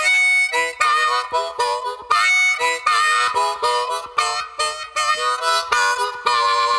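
Background music with a reedy lead melody of quick, short notes that bend in pitch.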